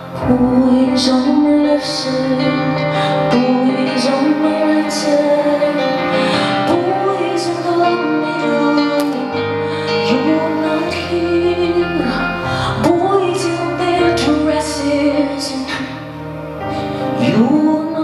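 A woman singing live with her own keyboard accompaniment: a sung melody with sliding pitch over held keyboard chords.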